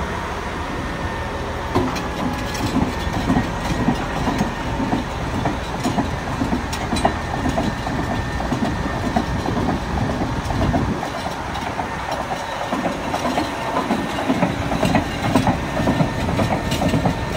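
Caterpillar D6T LGP bulldozer's diesel engine idling, a steady, rhythmic mechanical clatter.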